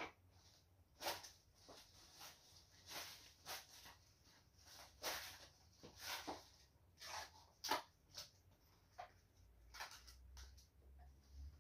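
Faint, scattered rustles and handling noises, short bursts every second or so, from large leaves and clear plastic sheeting being picked up and worked by hand.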